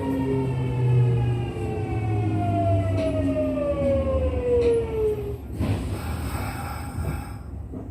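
Kintetsu 1233-series electric train's traction motor whine falling steadily in pitch as the train brakes to a stop. The set is one whose running noise is unusual. The whine dies out about five and a half seconds in, followed by a short rush of air.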